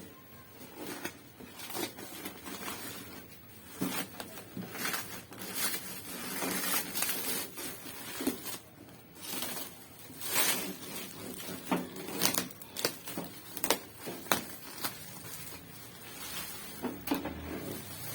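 Irregular clicks, knocks and rustling scrapes of cardboard and plastic as a gas heater is unpacked and handled by hand.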